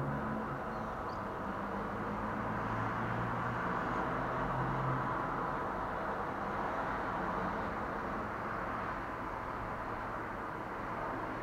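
Steady hum of city traffic, cars passing on a wide road, with a low engine drone through the first few seconds.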